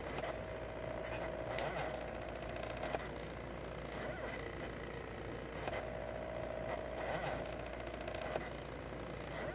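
Stepper motors of a 2000 mW diode laser engraver whining as the laser head traces an engraving. The steady whine runs for a few seconds, stops, and starts again past the middle, with a few sharp clicks as the head changes direction.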